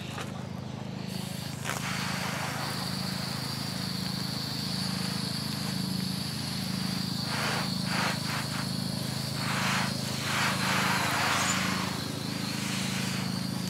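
Garden hose pistol-grip spray nozzle spraying water over a stacked plastic planter and the mulch around it: a hiss with a thin high whistle, surging louder twice in the second half. A steady low engine drone runs underneath.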